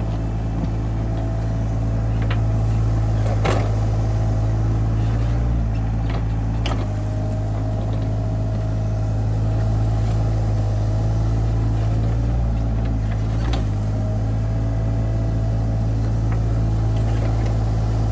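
SANY SY35U mini excavator's diesel engine running steadily under working load, with a thin hydraulic whine that comes and goes. A few short knocks are heard as the bucket works the soil.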